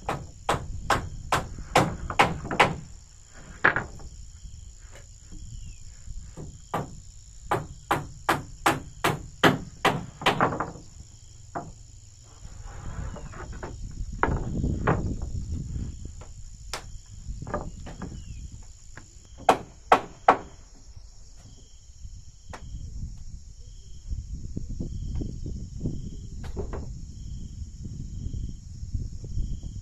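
Hammer blows on wooden floorboards, in quick runs of about three strikes a second at the start and again in the middle, then three more strikes later. A steady high insect drone goes on beneath them.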